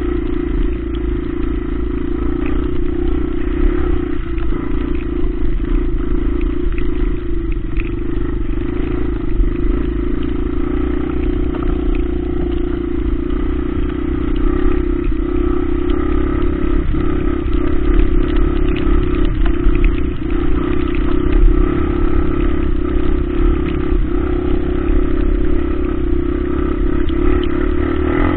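Small four-stroke trail motorcycle engine running steadily under way, holding a fairly constant speed, over a low rumble.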